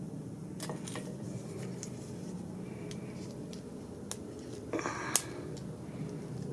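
Small metallic clicks and taps from handling a car door lock cylinder while working at its spring, a few scattered and a sharper cluster about five seconds in, over a steady low hum.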